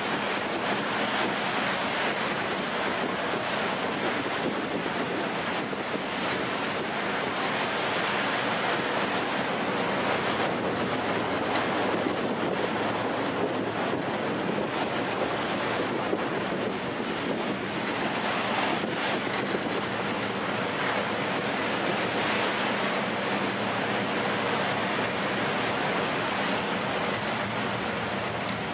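Steady rush of wind and sea water heard from a moving ferry's deck, with wind buffeting the microphone. A faint steady hum from the ferry's engines runs underneath.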